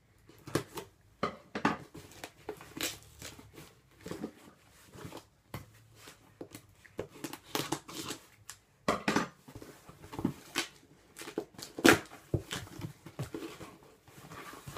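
Scissors cutting the tape on a cardboard Priority Mail box and the box being opened: irregular rustling, crinkling and scraping of cardboard and packing, with a sharp knock about twelve seconds in.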